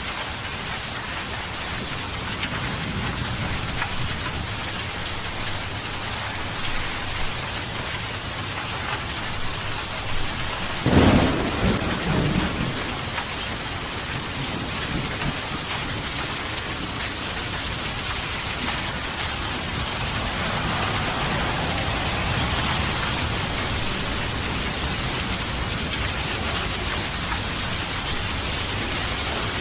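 Steady heavy rain falling, with a clap of thunder about eleven seconds in that rumbles for a second or two and dies away.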